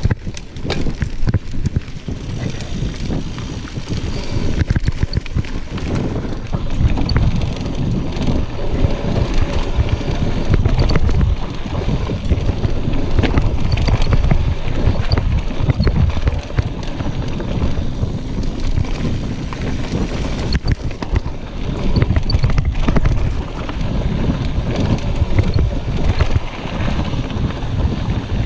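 Wind buffeting the microphone over the mountain bike's tires rolling fast on a dirt trail, with frequent knocks and rattles from the bike on the rough ground.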